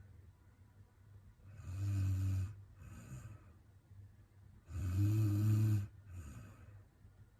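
A sleeping young woman snoring: two low, buzzing snores about three seconds apart, each followed by a short, softer breath.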